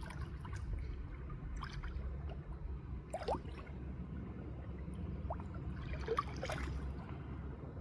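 Running water trickling and gurgling over a steady low rush, with scattered small splashes and plops, the most prominent about three and six seconds in.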